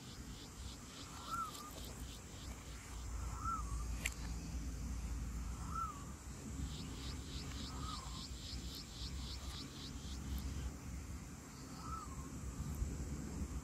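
A bird's short rising-and-falling call repeated about every two seconds. Under it, a higher call of quick pulses, about four a second, comes in two runs of a few seconds each, over a low outdoor rumble.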